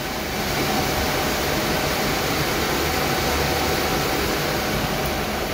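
Steady, loud rush of the many cooling fans of running GPU mining rigs and their server-grade power supplies, with a faint steady hum through it; it grows a little louder about half a second in.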